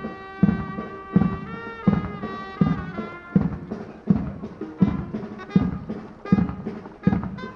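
Brass band playing a march, with a bass drum hit on every beat, about one and a half beats a second.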